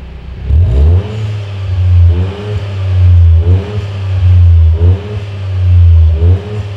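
Toyota GR Yaris RZ's 1.6-litre turbocharged three-cylinder engine free-revved in short throttle blips through a BLITZ Nur-Spec Custom Edition all-stainless exhaust with carbon-red tails. Five quick rises and falls in revs, about one every second and a half, over a steady low exhaust note.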